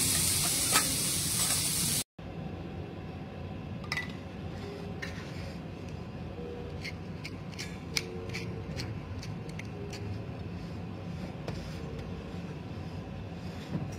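Steak sizzling on a flat steel griddle, a loud even hiss, which cuts off abruptly about two seconds in. After the cut comes a quieter steady low background with scattered light clicks and clinks.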